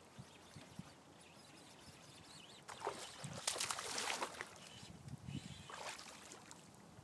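A small largemouth bass splashing at the water's surface as it is reeled in to the boat. The splashing comes in two spells: a longer, louder one about three seconds in and a shorter one near the end.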